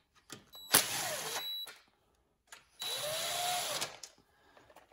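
DeWalt cordless driver spinning a valve-cover screw down on an aluminium OHV rocker cover, in two short runs of about a second each. The screws are only being brought down close, not tightened.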